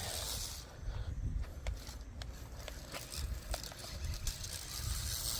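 Small battery-powered tracked RC stunt car driving through grass and vines, its rubber tracks brushing and crackling the vegetation with scattered small clicks, over a low outdoor rumble.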